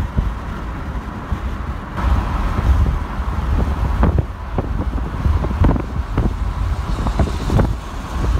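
Road traffic passing close by, cars and a tanker semi-truck, with wind gusting on the microphone in a low rumble.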